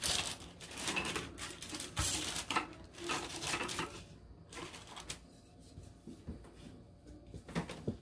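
Packaging crinkling and rustling in bursts over the first four seconds, then quieter handling with a few light knocks near the end.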